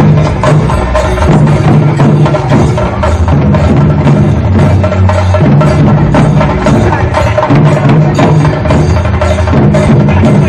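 A group of chenda drums beaten with sticks in a fast, dense, continuous rhythm, loud and close.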